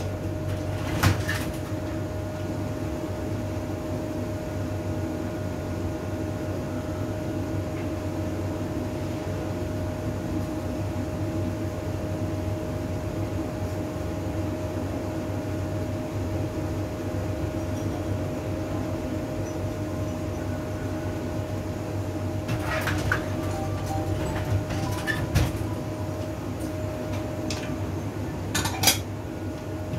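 Kitchenware clinking and knocking a few times, once about a second in, twice a little past the middle and loudest near the end, over a steady humming background with a faint fixed tone.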